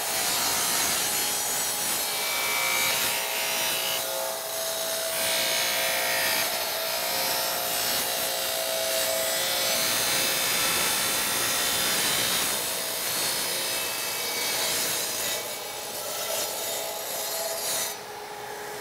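Wet tile saw running, its diamond blade cutting through a paper-backed glass tile as the sliding tray is pushed through. The cutting noise drops off about a second before the end as the blade clears the tile, leaving the motor's steady hum.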